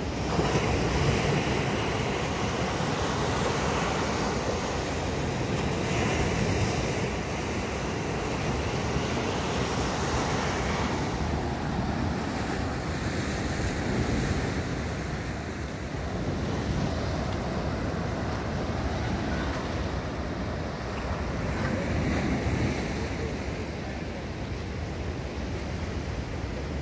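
Small sea waves breaking and washing up a sandy beach, a steady rush that swells and fades every few seconds, with wind buffeting the microphone.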